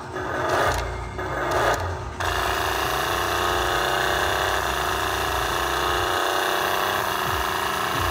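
Small electric motor and gears of a Kid Galaxy Chompin' Racer shark toy car switching on about two seconds in and running with a steady whine, after a few short sounds.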